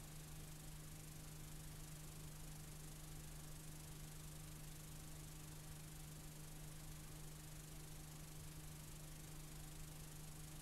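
Faint steady hiss with a constant low hum from a blank, unrecorded stretch of videotape.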